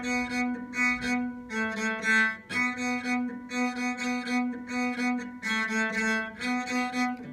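Bowed-string play-along music with sustained notes in a steady beat of about two a second, and a cello plucked pizzicato along with it.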